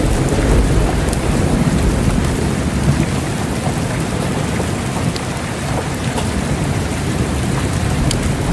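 Steady heavy rain pattering on surfaces, with the low rumble of distant thunder underneath, heaviest in the first second or so and easing off around the middle.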